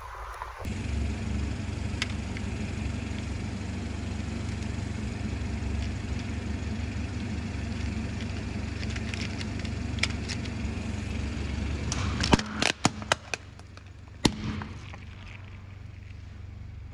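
A car engine runs with a steady low rumble. Near the end, a quick series of sharp, loud cracks comes as a car tyre crushes a plastic toy tabletop foosball game.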